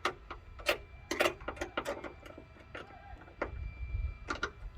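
Irregular sharp metal clicks and taps of a hand tool turning the hood latch bolts tight, several in quick succession.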